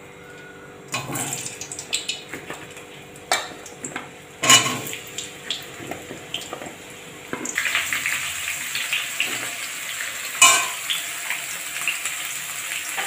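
Cut raw potato pieces going into hot oil in a metal kadai, with sharp knocks and clanks of potatoes and a metal spatula against the pan. About seven seconds in, a steady sizzle of the potatoes frying takes over, with the spatula still knocking now and then.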